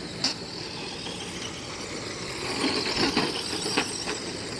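Slot cars running laps on a track: small electric motors whining with the rattle of the cars in the track's slots. There is a sharp click about a quarter second in, and a louder stretch with several clicks a little past the middle.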